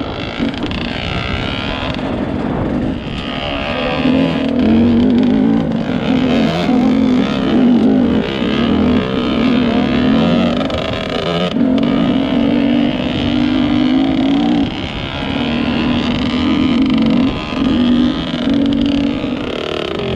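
Enduro dirt bike engines running at low revs on a rocky climb, the throttle opened and closed in short bursts every second or so.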